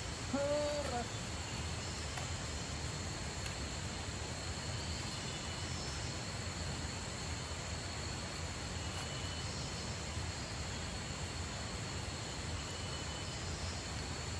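Steady forest riverside ambience: a constant rushing hiss of flowing water with a thin, unbroken high insect drone and scattered faint chirps. A short pitched call rises and falls about half a second in.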